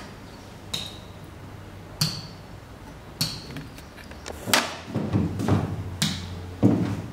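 Stylus tapping on an interactive whiteboard's screen: about seven sharp taps, roughly one a second, each with a short high ring.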